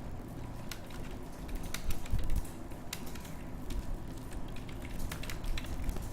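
Computer keyboard being typed on: quick, irregular key clicks during a typing-speed test.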